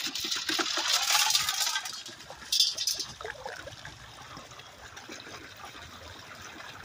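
Water and muddy material sloshing and rattling in the perforated classifier of a gold-mining power sluice, with a short sharper clatter about two and a half seconds in, then a steadier wash of water running through the rig.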